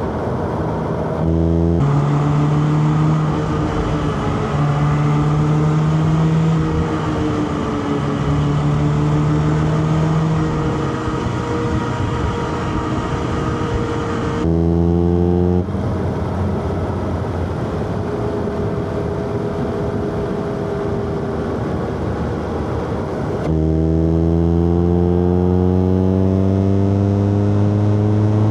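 Four-cylinder car engine driven hard under road noise, its pitch jumping at gear changes about a second and a half in and again around fifteen seconds. From about five seconds before the end, it revs up steadily and louder.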